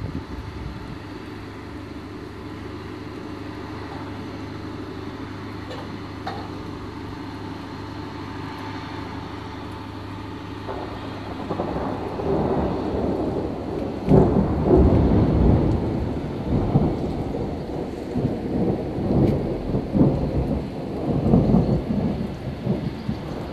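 Thunder from a thunderstorm: a long low rumble builds from about halfway through and rolls on in loud, uneven swells. Under it, a steady hiss of rain.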